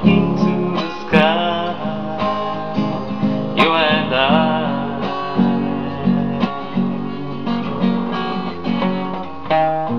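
Acoustic guitar strummed in a steady rhythm, chord strokes ringing on one after another between sung lines.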